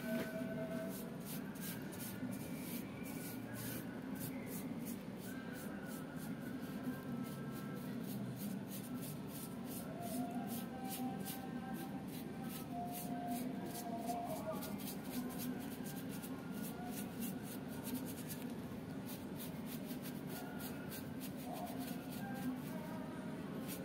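A stiff paintbrush scraping in quick repeated strokes, several a second, as it brushes liquid Aquaproof waterproof coating onto armor pieces.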